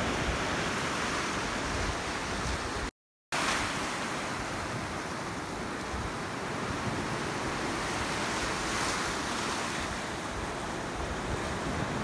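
Small waves washing and churning against the shore and pier pilings, a steady rushing wash with wind rumbling on the microphone. The sound cuts out completely for a split second about three seconds in.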